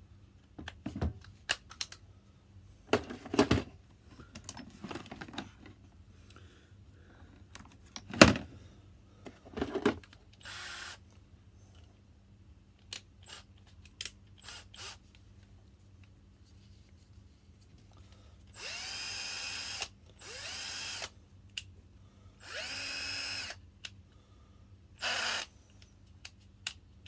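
Parkside PBSA 12 C2 12-volt cordless drill driver run briefly with no load four times in the second half, each burst spinning up with a rising whine. Before that, clicks and knocks, one sharp knock the loudest, as the drilling chuck is fitted back on the drill.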